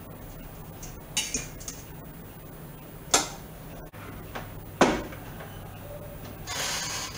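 Metal tongs clicking lightly against the air fryer basket, then the basket pushed into the air fryer with two sharp plastic-and-metal knocks, the second the louder, as it seats in the unit. A short hiss follows near the end, over a steady low appliance hum.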